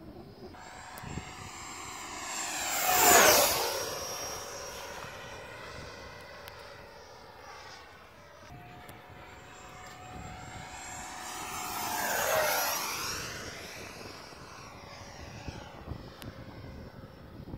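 Whine of an RC Eurofighter's 90 mm Schubeler DS-51 electric ducted fan as the jet makes two fast passes. The pitch drops as it goes by each time. The first pass, about three seconds in, is the louder; the second comes about twelve seconds in.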